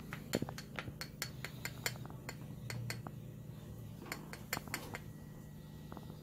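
A metal teaspoon clinking and tapping against a spice can as ground allspice is shaken out onto it: a quick run of light clicks for about two seconds, then a shorter burst about four seconds in, over a steady low hum.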